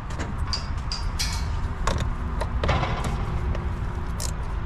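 Scattered short metallic clicks and clinks of a wrench working a battery terminal nut, over a steady low rumble.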